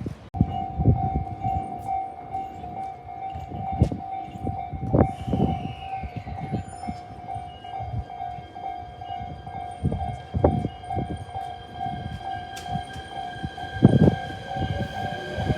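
A Japanese railway level-crossing alarm starts just after the start and keeps up a steady repeating ring, over irregular thumps and knocks. In the second half a high whine sets in after a downward glide, and near the end a rising whine joins it, fitting an electric train approaching the crossing.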